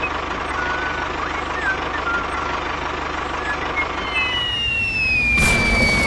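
Steady engine drone of a tractor, with a few short chirps over it. About four seconds in, a high whistle starts falling slowly in pitch, and near the end a sudden explosion bursts in.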